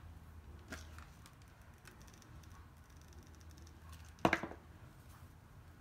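Quiet rustling and handling of paper strips, with a sharp knock about four seconds in as a hot glue gun is set down on the countertop.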